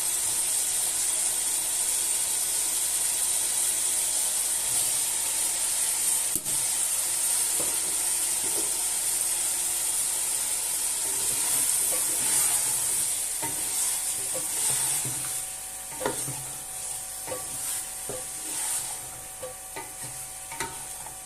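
Potato and cauliflower curry sizzling in hot oil in a pan, a steady hiss that fades in the last third. From about halfway on, a spoon stirring and knocking against the pan now and then.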